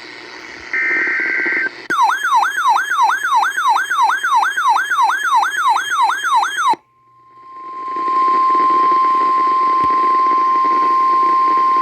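Emergency Alert System tones. About a second in comes a short buzzing burst of SAME digital header data. Then a fast rising-and-falling warble, about three sweeps a second, plays for about five seconds and cuts off abruptly. After a brief gap, a single steady tone of about 1050 Hz holds, the weather-radio warning alarm tone.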